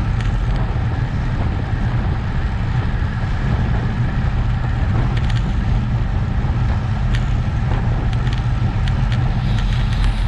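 Steady wind buffeting on a bike-mounted camera's microphone while riding at about 32 km/h, with low road rumble and a few faint ticks.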